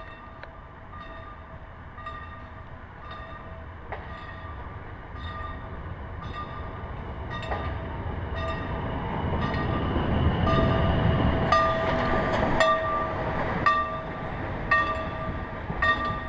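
Steam locomotive running tender-first close past, its exhaust beating in a regular rhythm about once a second that quickens slightly. A rumble of the wheels on the rails builds to its loudest as it passes, a little over halfway through.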